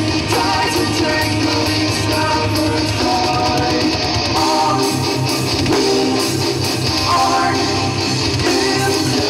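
A live band playing loud rock with amplified electric guitars, bass and drums.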